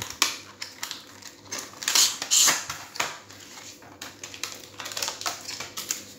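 Clear plastic packaging of a phone case crinkling and crackling as it is opened and the case is pulled out, a run of irregular clicks and rustles, loudest about two seconds in.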